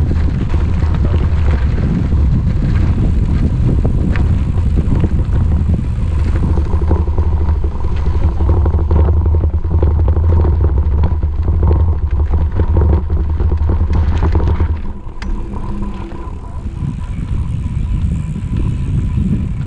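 Bicycle rolling over a rough dirt and gravel trail, recorded by a camera mounted on the bike: heavy tyre rumble with gravel crackle and wind on the microphone, and a faint steady whine underneath. The rumble falls away about fifteen seconds in.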